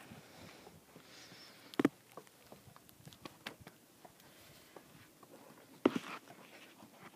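A dog's paws patting and crunching in snow as she moves about, with many small scattered ticks and two louder sharp knocks, one about two seconds in and the loudest about six seconds in.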